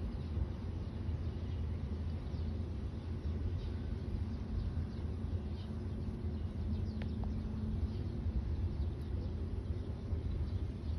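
Outdoor background noise: a steady low rumble, with a few faint, short bird chirps far off.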